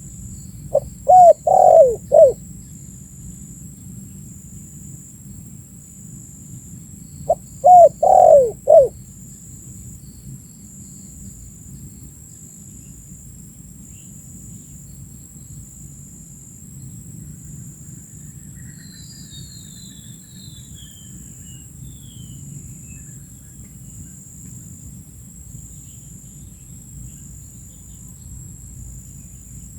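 Spotted dove cooing: two loud phrases of three or four coo notes each, one near the start and one about seven seconds in, over a steady low hiss. Faint high chirps of a small bird come around twenty seconds in.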